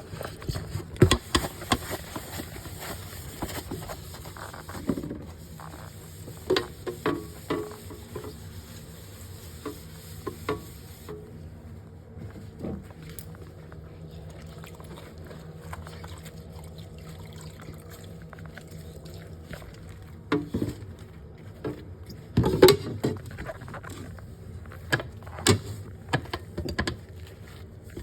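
Cleaning a fridge: scattered knocks and clatter of items being handled, over a steady low hum, with a hiss that cuts off sharply about eleven seconds in.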